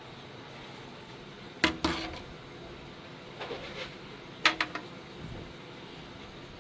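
Handling noise while a ceiling fan blade is measured: a few sharp clicks and knocks, two close together under two seconds in and another about halfway through, with small rattles between.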